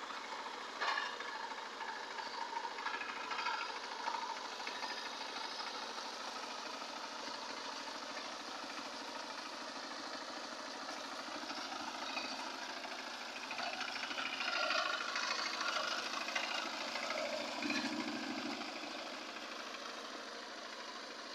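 Engine of a two-wheel power tiller running steadily as it ploughs a flooded rice paddy, louder for a few seconds past the middle.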